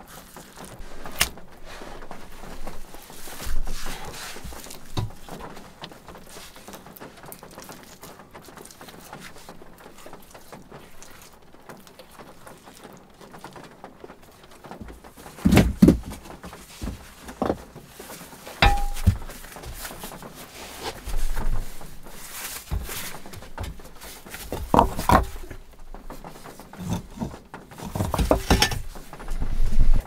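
Stones being handled and set into place for a stone-and-clay stove: scattered thunks and knocks of stone on stone, the loudest about halfway through and a cluster near the end. One knock about two-thirds of the way in rings briefly.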